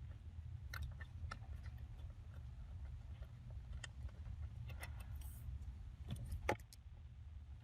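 Scattered light metallic clicks and taps of a hand tool unscrewing the nut off a ground bolt near a car's fuse box, over a steady low hum.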